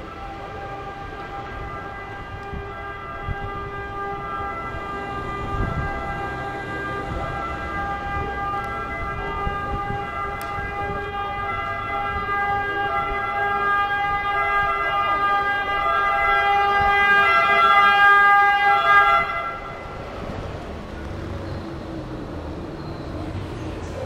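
Fire engine siren sounding steadily and growing louder as the truck approaches, then cutting off abruptly about 19 seconds in.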